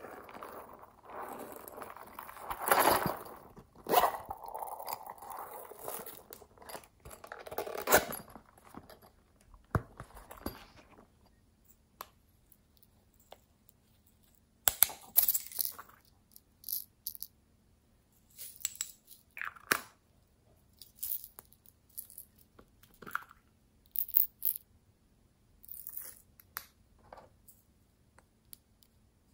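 Hollow plastic toys and containers handled close up. For the first ten seconds or so there is a rustling, scraping stretch with a few louder knocks, then a string of short, separate plastic clicks and taps every second or two.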